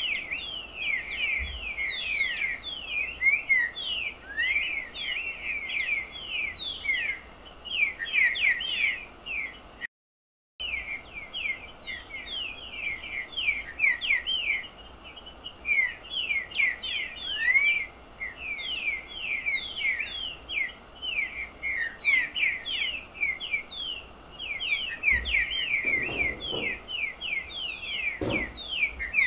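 A picharro (saltator) singing: a fast, unbroken stream of high, quick downslurred chirps. The sound cuts out briefly about a third of the way in, and there are a couple of dull thumps near the end.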